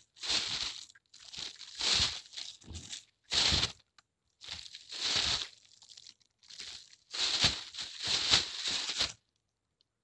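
Thin plastic bag being crumpled and rustled in a series of crinkling bursts, each half a second to two seconds long, separated by short pauses and stopping about nine seconds in.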